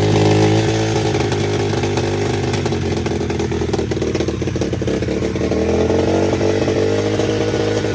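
SSR 125cc dirt bike's single-cylinder four-stroke engine running steadily with a new carburetor fitted, its pitch dipping and rising gently with the throttle: the bike that would not start now runs.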